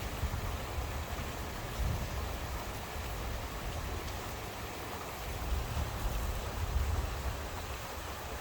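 Steady rain falling, an even hiss of drops, with a low rumble underneath that swells and fades.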